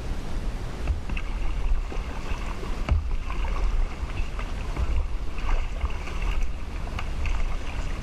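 Kayak paddles dipping and splashing in calm water, with drips and a few sharp knocks, over a low rumble of wind on the microphone.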